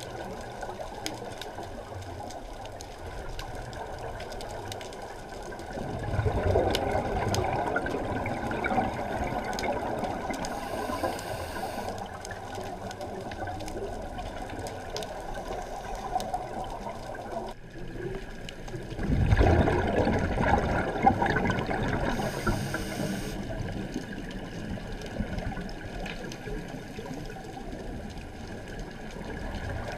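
A scuba diver's exhaled regulator bubbles, heard underwater through a GoPro's waterproof housing. The bubbles come as a sudden rush twice, each dying away over a few seconds, over a steady hiss with scattered faint clicks.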